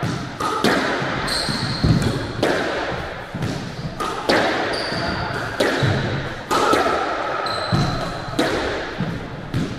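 Squash rally: the ball is struck by rackets and slams against the court walls in sharp hits about every half second to a second, each echoing in the enclosed court, with short squeaks of shoes on the court floor between shots.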